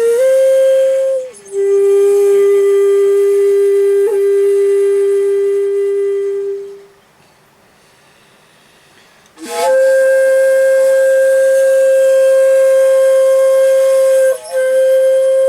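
Solo shakuhachi playing slow, long-held notes. A note drops to a lower pitch and is held for about five seconds before fading out. After a pause of about two and a half seconds, a higher note starts with a sharp, breathy attack and is held steadily, with a brief break near the end.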